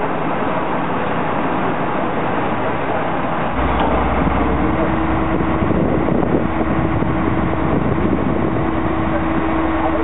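Heavy fire-brigade crane truck's diesel engine running. About a third of the way in the engine's low rumble grows heavier, and a second later a steady whine joins it as the truck's outrigger jack is lowered onto its wooden pad.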